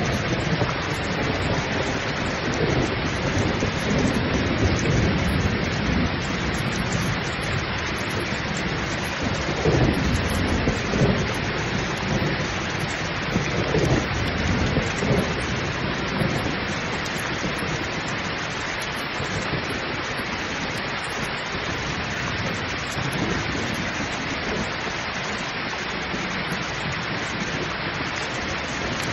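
Heavy rain pouring steadily, with rolling thunder rumbling through the first half, loudest around ten to fourteen seconds in, then dying away.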